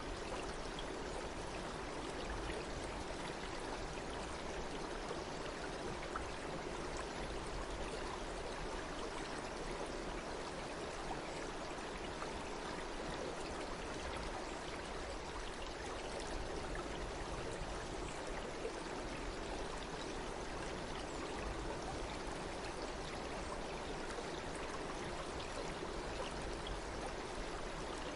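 Stream water flowing steadily, an even rush with no breaks or changes.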